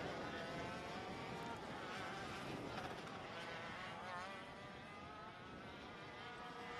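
ROK shifter karts' 125cc two-stroke engines buzzing fairly faintly as they race, pitch climbing and dropping with the revs and gear changes, a little quieter in the second half.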